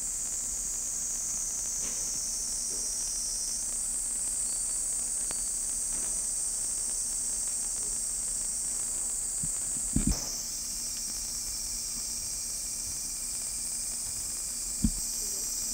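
Steady, high-pitched drone of insects, with a dull knock about ten seconds in and another near the end.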